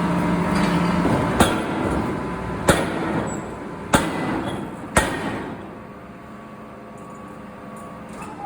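Four sharp hammer blows, a little over a second apart, over a steady machinery hum that cuts out about a second in. A quieter steady background follows the last blow.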